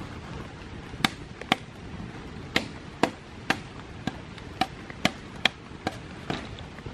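Machete chopping at split bamboo halves, cutting out the node walls to open a water channel: about a dozen sharp strikes, roughly two a second, over the steady hiss of rain.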